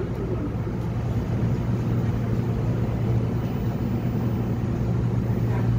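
Inside a Korail 341000-series subway car running along a station platform: a steady low hum over the rumble of the moving train.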